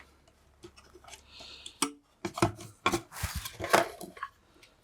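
Handling clatter from the opened plastic case of a soldering station power supply and its loose parts: irregular knocks and clicks, with a short scrape about a second and a half in.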